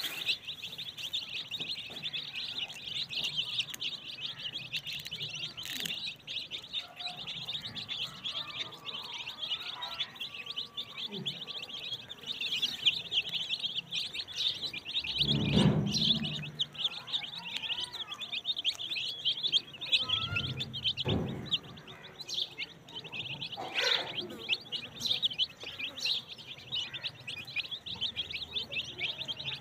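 A large flock of young chicks peeping together in a dense, unbroken chorus of high peeps while they feed. A brief low rumble comes about halfway through.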